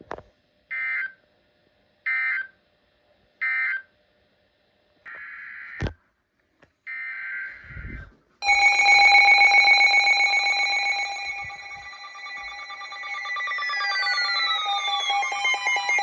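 NOAA Weather Radio SAME digital data: three short, screechy end-of-message bursts about a second apart, then two longer data bursts. About eight seconds in, loud alert tones from several weather radios start sounding together, many tones at once with falling sweeps running through them, as the next warning is issued.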